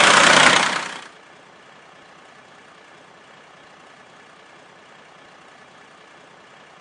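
A toy fire truck's engine sound, loud and even, fading out about a second in and leaving only a faint steady hiss.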